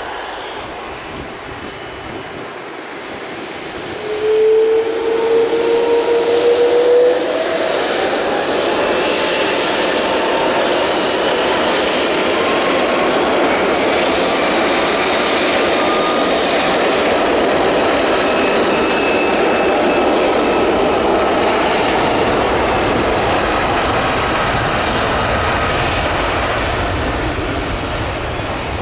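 Airbus A330-300 jet engines running close by. About four seconds in, a loud whine rises in pitch as thrust comes up, and it settles into a steady, loud jet rush with a high whine over it.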